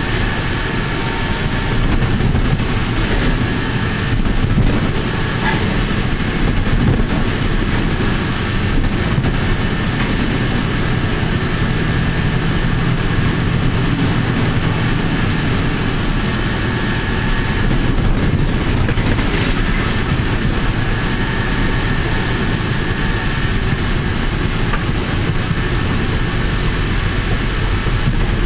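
Steady, loud rush of wind and road noise from a vehicle moving along the road, with a low engine drone underneath.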